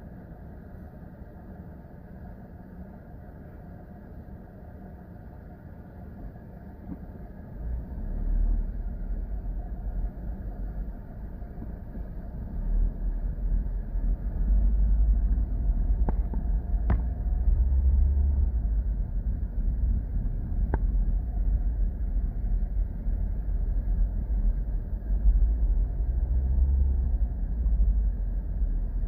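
Car driving, with a low engine and road rumble that grows louder about eight seconds in and stays loud. A few sharp clicks come near the middle.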